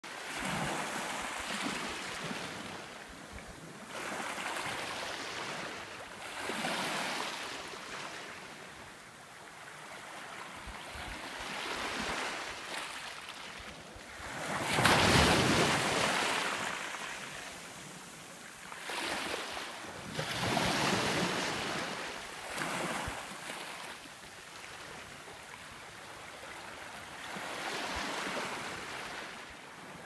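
Small ocean waves breaking and washing over a pebble beach, swelling and fading every few seconds; the biggest wash comes about halfway through.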